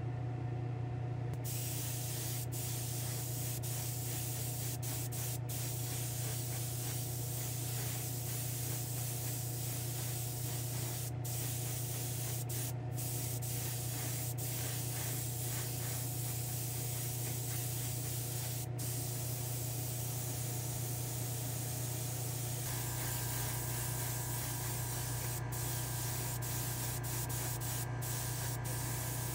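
Airbrush spraying paint: a steady hiss that starts about a second and a half in and breaks off briefly a few times, over a constant low hum. About 23 seconds in, extra steady tones join the hum.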